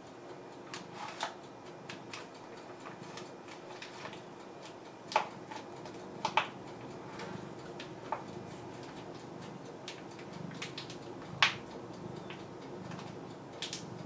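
Indoor room tone: a steady low hum with about half a dozen irregular sharp clicks and taps, the loudest about five and eleven seconds in.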